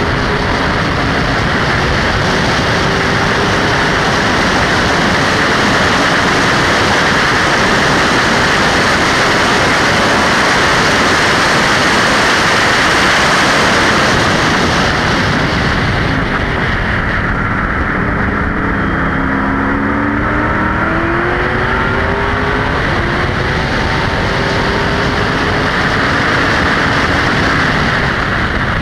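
TA2 Camaro race car's V8 engine running hard at high revs on the straight. About halfway through the sound eases off and the engine's pitch can be heard sliding, then it builds back to full throttle near the end.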